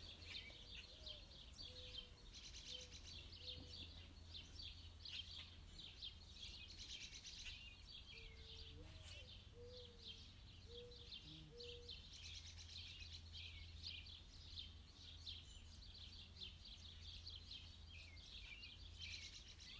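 Faint, continuous high-pitched chirping and peeping of many small calls overlapping, typical of birds around a pond, over a steady low hum.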